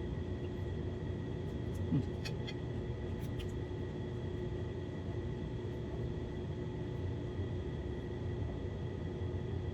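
Steady low machine hum with faint constant tones, with a few soft clicks and a brief murmur about two seconds in.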